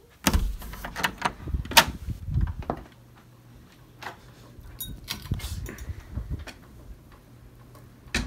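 Knocks, bumps and clicks of a door and someone moving about in a darkened bedroom, busiest in the first three seconds, with a sharp click near the end.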